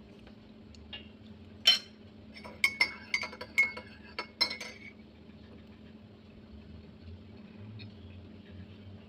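Metal spoon clinking against a ceramic mug while stirring milk: one sharp clink about a second and a half in, then a quick run of about eight clinks with a short ringing tone over the next two seconds.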